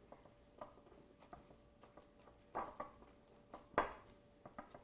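Soft scattered taps and knocks of a hand packing shredded zucchini down into a glass measuring cup, with two louder knocks, the bigger one a little before the end.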